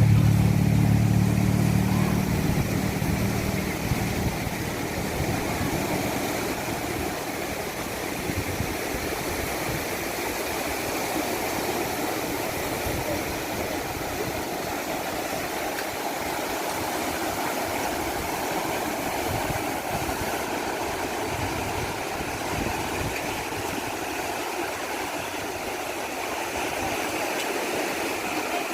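A motor vehicle's engine hum fades away over the first few seconds, leaving a steady rush of heavy surf breaking on the beach.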